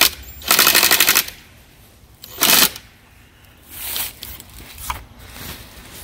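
Cordless power driver driving a screw through a wooden birdhouse's mounting board into a tree trunk, running in two bursts of rapid rattling clicks: the first lasts under a second, the second is shorter and comes about two seconds later.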